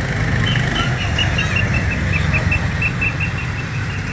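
Go-kart engines running together in a steady low rumble. Over it comes a fast run of short, high chirps, about five a second, drifting slightly lower in pitch.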